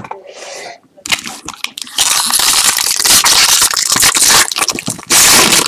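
Foil wrapper of a pack of baseball trading cards being torn open and crinkled by hand. It is a loud, dense crinkling that starts about a second in and runs on, with a brief lull near the end before a last burst.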